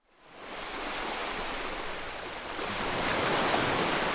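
A steady rushing noise, like wind or surf. It fades in over the first half second and gets louder about two and a half seconds in.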